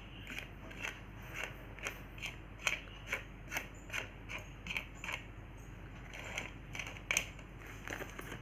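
A quick run of crisp clicks, about two to three a second, then a short crinkle and a louder click near the end, from handling Gems chocolate packets and their contents.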